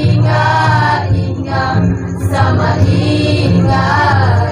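A group of girls and young women singing a folk song together, about four sung phrases with held notes and short breaths between them, over a steady low hum.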